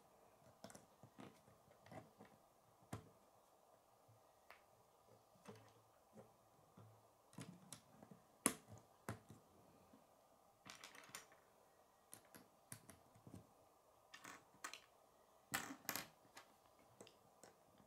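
K'nex plastic rods and connectors clicking and snapping as they are fitted together by hand and set down on a wooden tabletop. The sharp clicks are scattered and irregular, with the loudest about eight seconds in and a cluster near the end.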